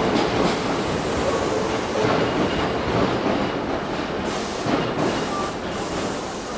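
Hankyu train moving through the station on another track, its wheels clattering over the rail joints in a steady, loud rumble.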